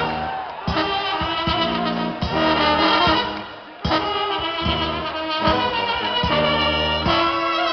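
Live Balkan brass band playing: trumpets and trombones over a steady drum and low-brass beat. The sound dips briefly about three and a half seconds in, then comes back abruptly.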